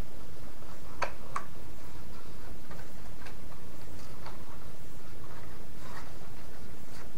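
Light, irregular clicks and crinkles of white cardstock being folded and pressed by hand as a small gift box's glued sides are stuck together, the clearest pair about a second in, over a steady low hum.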